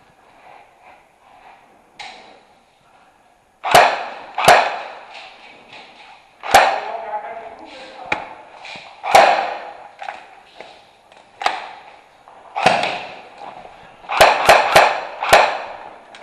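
Airsoft guns firing indoors: about ten sharp shots, each trailing off in an echo, with a quick burst of four near the end.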